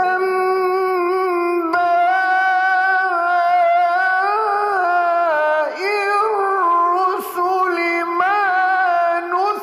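A man's voice in melodic Quran recitation (tajweed): long, high held notes with wavering melismatic ornaments, and a brief pause for breath near the end.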